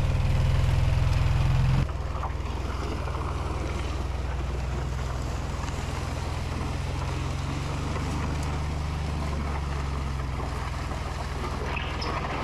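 ATV engine running steadily at low speed while it tows an engine on a cart, with a steady rushing noise of the cart rolling over gravel. The engine sound drops abruptly about two seconds in.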